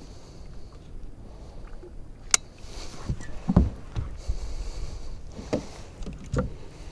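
A landing net's handle and hoop knocking against the boat deck as it is pulled out and swung into position. There is a sharp click about two seconds in, then a handful of dull thumps, the loudest about halfway through, over a low rumble.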